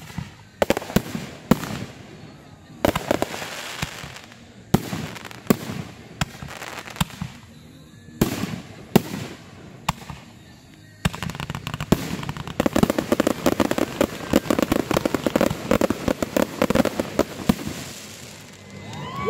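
Aerial fireworks going off: a string of sharp bangs from bursting shells about every second or so, then from about eleven seconds in a dense crackling that runs for several seconds before dying down near the end.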